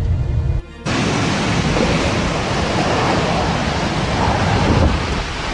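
Strong tornado wind blowing, a dense even rush of noise with gusts buffeting the microphone. It follows a low rumble that breaks off less than a second in.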